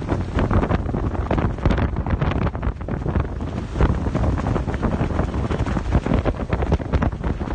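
Typhoon wind buffeting the microphone in uneven gusts: a loud, low rumble.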